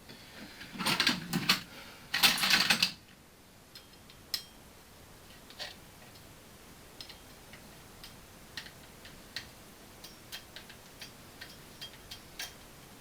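Metal tools and parts being handled: two loud rattling clatters in the first three seconds, then scattered light metallic clicks and ticks at irregular spacing.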